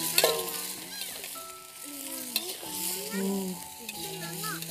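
Fried salted patin fish being stirred into a spicy sauté in a pan: frying sizzle with the spatula scraping and clicking against the pan, over background music.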